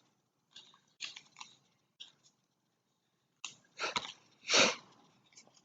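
Trading cards being handled and slid over one another: a handful of short, dry rustles and scrapes, the longest and loudest about four and a half seconds in.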